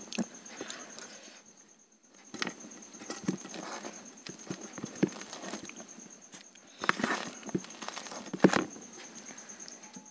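Close-up eating sounds: irregular wet clicks and smacks of chewing, with fingers mixing rice and curry on a steel plate, and a few louder smacks past the middle.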